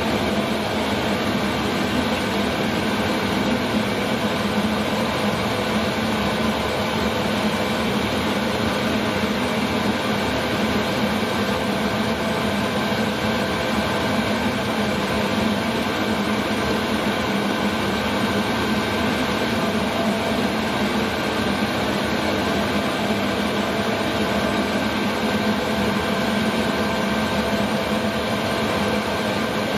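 Chinese 5 kW 12-volt diesel air heater running steadily: a constant fan whir and burner rush with a few faint steady whining tones over it.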